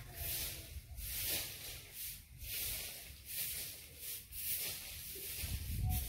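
A broom sweeping the ground in rhythmic scratchy strokes, about one and a half strokes a second. A low rumble rises near the end.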